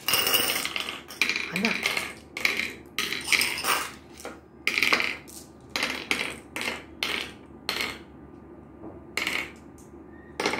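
Glass marbles clicking as they are dropped one by one into the pits of a wooden gurpale (mancala) board, knocking against the marbles already there. A quick run of clicks thins out after about eight seconds to just two more.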